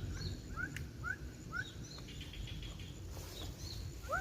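A bird calling a run of short rising notes, about two a second. A brief rapid chirping from another bird comes about two seconds in, over a steady low rumble.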